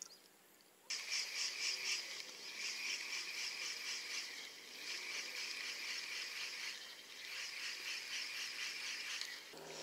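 Insects chirping in a rapid, even pulsing rhythm of about five chirps a second, in runs of a few seconds. The chirping starts abruptly about a second in.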